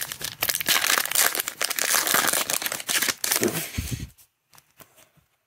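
Plastic-foil wrapper of a Panini Mosaic football card pack being torn open and crinkled by hand, a dense crackle for about three seconds, followed by a short dull handling sound as the cards are pulled out.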